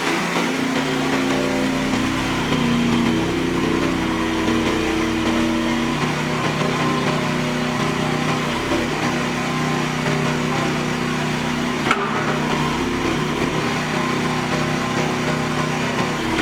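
Mini skid steer loader's engine running steadily. There is a single sharp click about twelve seconds in.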